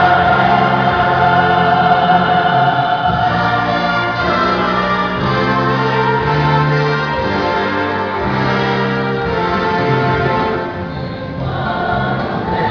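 Youth church choir singing a gospel song in several voice parts, holding long notes over a steady low line. It grows briefly softer a little before the end.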